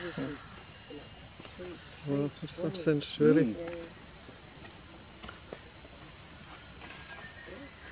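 Loud, steady, high-pitched drone of a chorus of insects, with a fainter, higher tone running above the main one.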